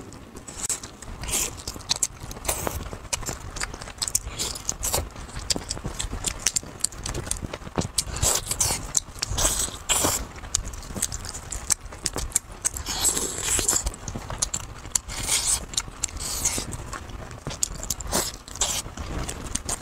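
Close-miked eating of roast chicken by hand: biting and chewing, heard as a dense, irregular run of sharp mouth clicks and smacks.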